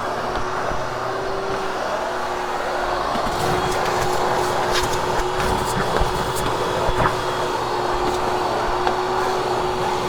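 Vacuum cleaner running steadily over carpet while post-vacuuming after a cleaning, with one steady hum tone and scattered small clicks from about three seconds in.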